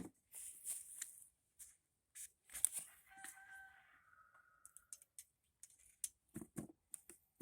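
Faint handling noise of small clicks and rustles, with a rooster crowing faintly in the background about three seconds in.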